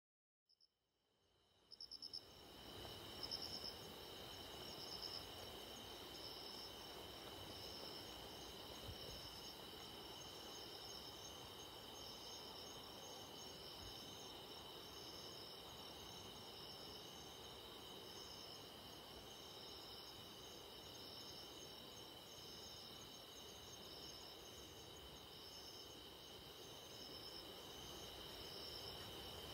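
Insects chirping as a faint background ambience: several steady high trills overlapping, with one pulsing chirp above them. It fades in from silence about a second in.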